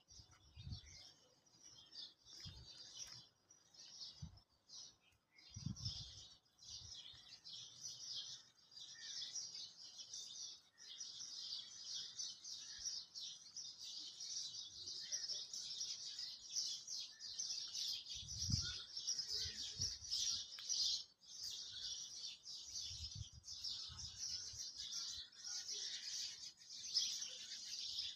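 Pencil lead scratching on paper in quick shading strokes, with a few brief pauses. There are occasional soft low bumps, most clearly around the middle and about three-quarters of the way in.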